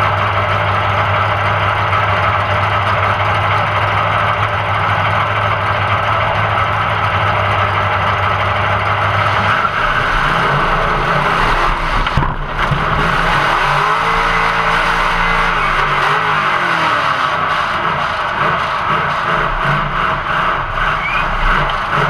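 Demolition derby car's engine heard from inside the stripped cab, running at a steady pitch at first, then revving up and down from about halfway, over constant loud noise.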